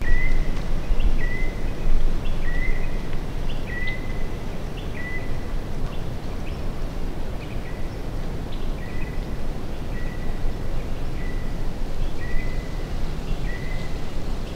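A bird calling over and over, a short two-part note about once a second, over a steady low rumble of outdoor background noise.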